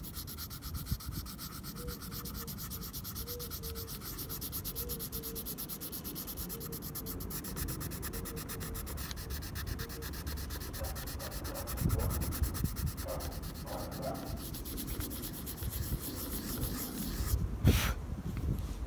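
Colourless blender pencil rubbing over layered colour pencil on paper in quick, short scratchy strokes, blending the blues together; a single knock near the end.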